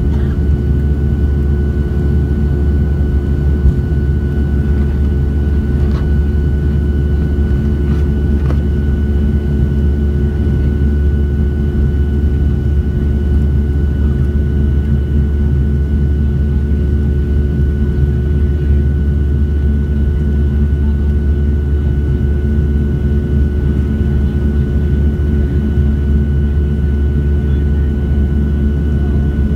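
Cabin noise of a Boeing 737-700's CFM56-7B turbofan engines at takeoff thrust, heard from a seat over the wing: a steady deep rumble with steady tones above it, through the end of the takeoff roll and the initial climb.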